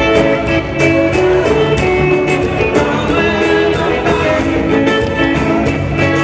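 Live band music: electric guitar over drums with a steady beat.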